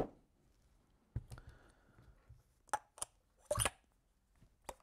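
Light clicks and taps of small metal parts as the bolt can is screwed back onto a Dye DSR paintball marker, with one slightly longer scrape about three quarters of the way through.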